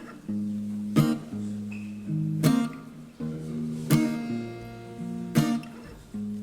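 Acoustic guitar playing an instrumental passage: a strong strum about every second and a half, with the chord ringing on between strums and changing from one to the next.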